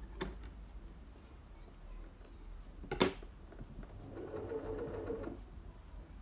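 Singer electric sewing machine in use: a sharp click about three seconds in, then a short run of stitching lasting about a second and a half.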